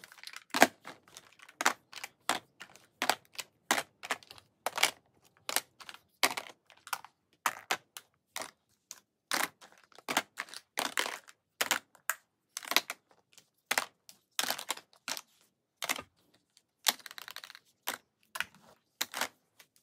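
Plastic and metal makeup compacts being set down one after another into a plastic storage drawer, landing on one another in a run of short clacks, one or two a second.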